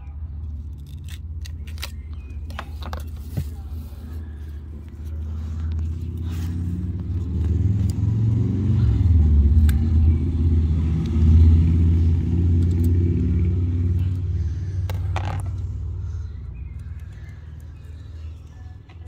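Low rumble of a motor vehicle, swelling from about five seconds in to a peak in the middle, then fading away near the end. A few sharp clicks and scrapes from a filleting knife working along the snapper's frame.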